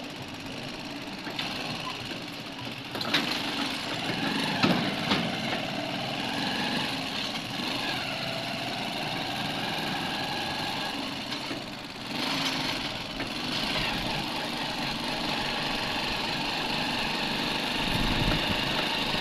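Engine running and road noise from a vehicle driving slowly along a town street, with a few sharp knocks about three to five seconds in.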